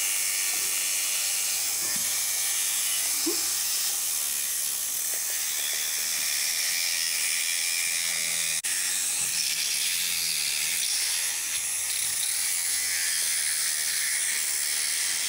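Motorized equine dental float with a small disc grinding a horse's incisors, a steady hissing whir.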